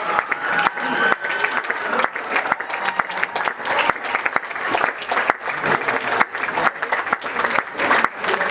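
An audience applauding, many hands clapping at a steady level throughout.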